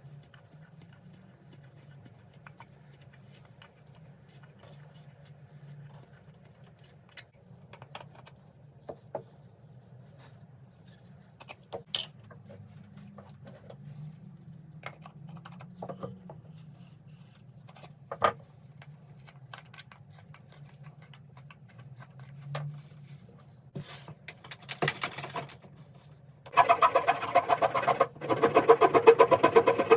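Scattered light knocks and clicks over a low steady hum, then background music with a drum beat comes in loudly near the end.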